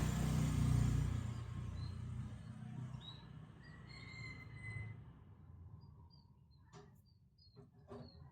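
A passing vehicle's rumble fading away over the first few seconds, then a few short high chirps and several soft clicks near the end.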